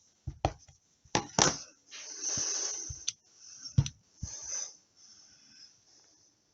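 Craft supplies being handled on a desk: a series of sharp knocks and clicks, the loudest a little before four seconds in, with short scuffing and rubbing sounds between them.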